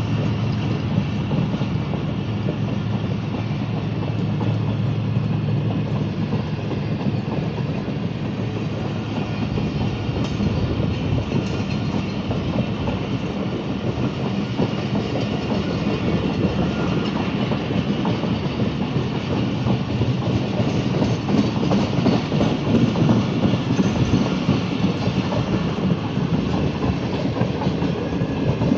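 Pakistan Railways passenger coaches rolling past close by, their wheels clicking over the rail joints in a continuous clickety-clack. A low steady hum sits underneath for the first several seconds and then fades.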